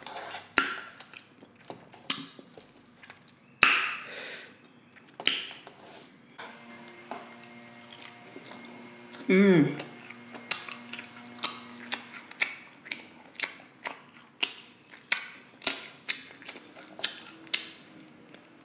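Close-miked chewing of glazed pork ribs: wet mouth clicks and lip smacks at an uneven pace, with a few louder smacks, and a short hummed vocal sound about nine seconds in.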